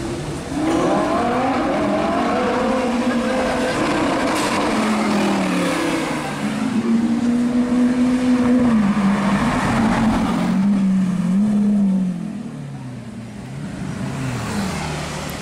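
Lamborghini Aventador V12 supercar engine, loud as it accelerates hard, its pitch climbing and dropping back several times as it goes up through the gears. It grows quieter about twelve seconds in.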